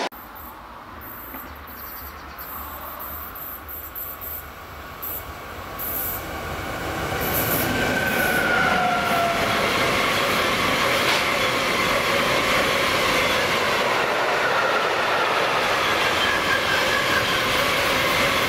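Freight train of tank wagons passing at speed: the rolling noise of wheels on rail grows louder over the first seven or eight seconds, then holds steady as the wagons run by. Brief wheel squeals come about eight seconds in.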